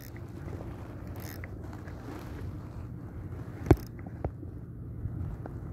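Spinning reel being cranked during a lure retrieve, a steady low whirr of its gears against wind on the microphone, with a sharp click a little before four seconds in.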